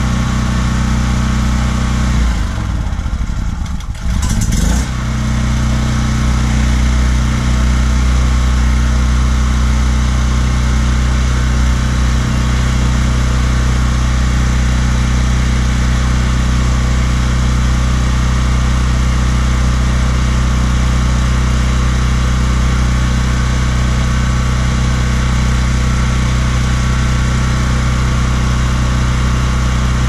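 DuroMax XP4850EH dual-fuel portable generator running on propane just after starting. Its engine speed wavers and dips about two to five seconds in, then settles into a steady run.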